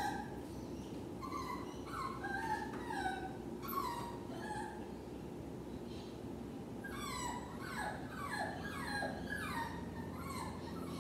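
Jack Russell terrier whining and whimpering while left home alone: short, high-pitched cries at irregular intervals, with a run of quick falling whines about seven seconds in.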